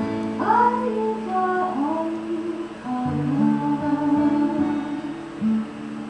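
Intro music of a stage-musical ballad: plucked acoustic guitar with a wordless sung line gliding over it.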